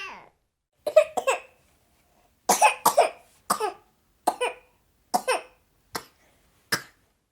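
A baby coughing: a series of short, sharp coughs, roughly one a second, some in quick pairs.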